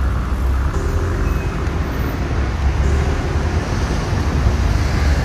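Road traffic noise: a steady low rumble with a faint engine hum at times.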